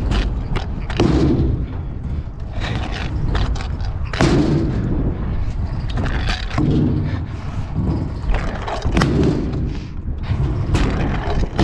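Stunt scooter riding ramps: wheels rolling and rumbling over the ramp surface, with repeated hard thuds and clacks as the deck hits transitions and lands, about every one to two seconds, under heavy wind buffeting on the mic.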